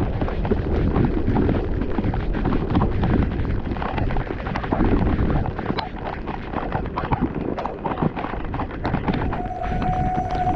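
Rumbling wind buffeting on the microphone and rattling knocks from riding a bicycle on a wet path. Music comes in near the end.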